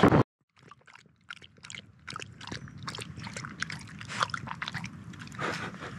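Cavalier King Charles spaniel lapping water from a small plastic tub: a run of quick, irregular wet clicks, several a second.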